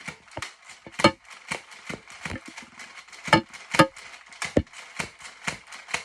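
X-Shot minigun foam-dart blaster firing over and over, a sharp snap with each shot, unevenly spaced at about two a second.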